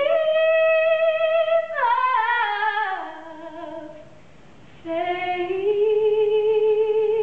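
A woman singing unaccompanied in long held notes: a high note held, then sliding down with a waver. After a pause of about a second, another long note rises a little and is held.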